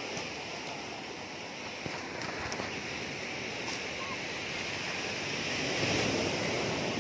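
Surf breaking and washing up a pebble beach, a steady rushing that swells a little near the end, with some wind on the microphone.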